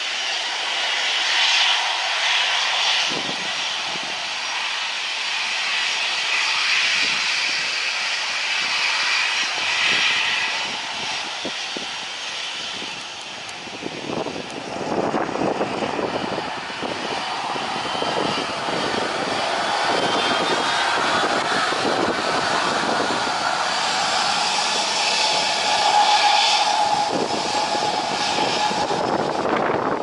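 Boeing 737-900ER's CFM56 turbofan jet engines whining steadily at taxi power. A deeper rumble joins about halfway through.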